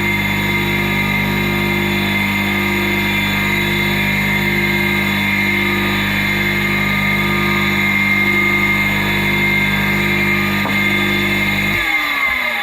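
Electric motor salvaged from a table saw, running steadily on mains power with an even hum and whine. It is switched off about a second before the end, the hum cutting out at once and the whine falling as the motor spins down.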